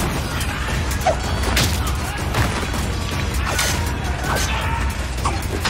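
Film fight-scene sound mix: a heavy, low music score under several sharp hits and weapon swings from a crowd brawl with machetes and sticks.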